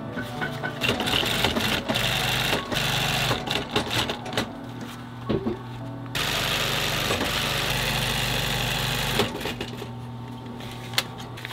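Toyota industrial zigzag sewing machine stitching a synthetic hiking-boot upper. It runs in two stretches, from about a second in to three seconds, and a longer run from about six to nine seconds in, with clicks of the fabric being handled between them.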